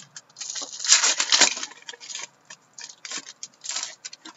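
Hockey trading cards being flipped and slid against each other in the hands: a run of crisp rustles and clicks, densest in the first two seconds, with a few more clusters near the end.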